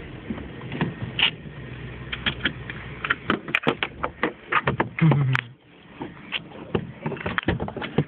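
Irregular clicks, knocks and light rattles inside a car's cabin, with a brief louder low thud about five seconds in.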